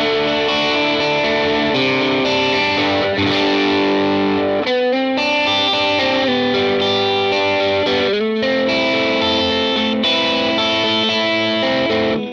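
Fender Telecaster played through a GizmoAudio Sawmill Jr. MOSFET overdrive pedal into a Vox AC15 amp: ringing, lightly overdriven chords and notes, with the pedal's tone knob turned a little above noon and the bass cut switch engaged, so the lows are trimmed. There are two brief gaps between phrases, about five and eight seconds in.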